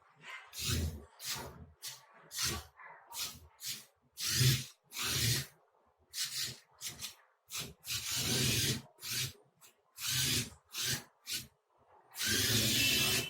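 Small electric gear motors of a Bluetooth RC car running in short, irregular stop-start bursts, about twenty of them, the longest near the end.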